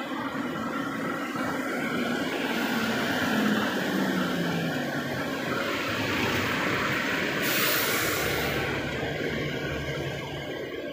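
Double-decker city bus running close by, its diesel engine droning steadily under street traffic noise. About seven and a half seconds in, a loud burst of air hiss from the bus's air brakes lasts about a second.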